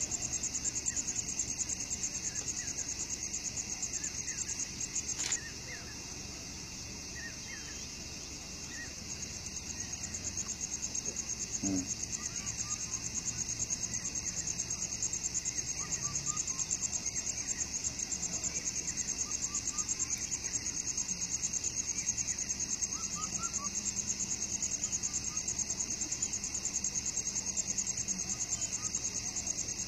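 Insects chirring: a high, continuous pulsing trill, with a few faint bird chirps.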